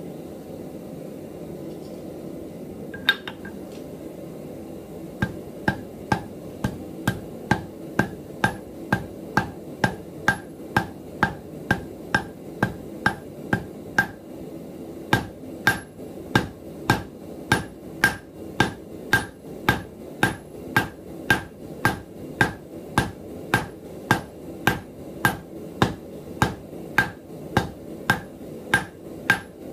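Hand hammer striking a red-hot 3/16-inch round bar on the anvil face: one blow a few seconds in, then steady rhythmic blows about two a second, each with a short bright ring, with a brief pause about halfway. A steady low rumble runs underneath.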